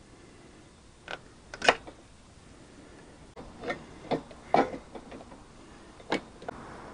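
Scattered clicks and knocks of a motorcycle carburetor being worked loose and pulled out by hand, about half a dozen, with the sharpest knock about two seconds in.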